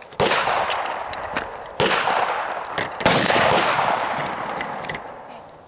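Three gunshots about a second and a half apart, each ringing out in a long echoing tail, with a few light clicks in between.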